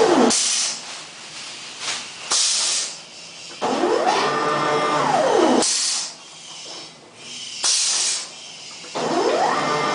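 Stepper-motor film feed of a pneumatic bubble-film pouch making machine running in cycles: a whine that rises, holds and falls over about two seconds, heard once in full and starting again near the end. Between feeds there are short hisses of compressed air from the pneumatic cylinders that work the sealing bar.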